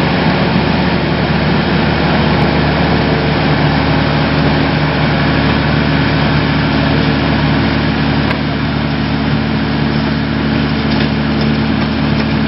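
Excavator-mounted vibratory sheet-pile hammer (Daedong DTVH700T on a Volvo 360 excavator) running steadily, its vibration and the excavator's diesel engine and hydraulics making a constant loud hum.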